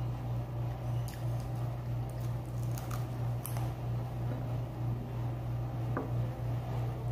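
Soft wet squishing and a few faint clicks of someone eating with her fingers, picking food off a plate and chewing, over a steady low hum that is the loudest sound throughout.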